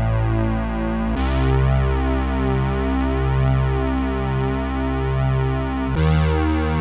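Yamaha TX81Z FM synthesizer playing sustained, slowly pulsing bass notes. The note changes about a second in and again near the end, each new note starting with a short bright attack.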